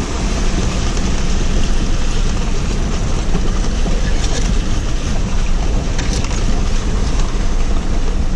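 Four-wheel-drive vehicle driving through a shallow flooded creek bed, heard from inside the cab: the steady run of the engine under the noise of tyres churning and splashing through water.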